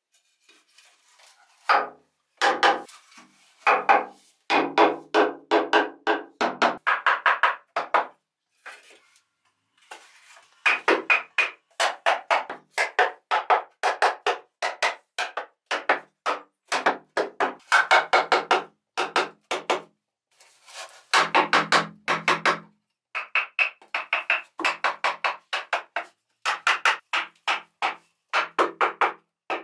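Green bamboo tubes knocked with a flat piece of wood, tapping them tight into place. The knocks come in quick runs broken by short pauses, and each hollow tube rings with its own pitch, so the knocking sounds almost musical.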